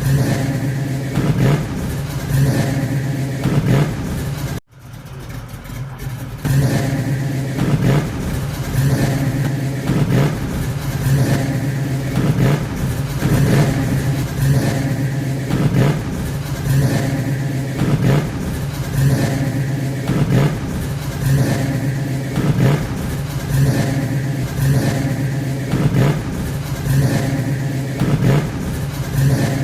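An engine running steadily, swelling in level about every two seconds, with a brief cut-out about four and a half seconds in.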